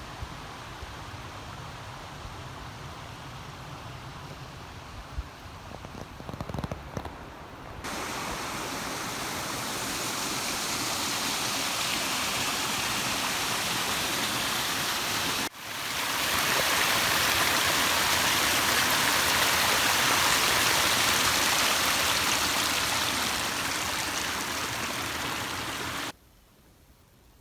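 Steady rushing of a stream's running water, starting abruptly about a third of the way in, with a brief break about halfway, and cutting off near the end. Before it comes a quieter stretch of outdoor rustling and low wind rumble.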